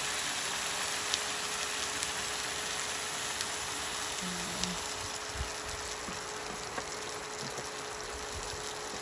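Fish stew sizzling and crackling in a pot on an induction stove, with scattered small pops; the heat is too high on one side for a slow simmer.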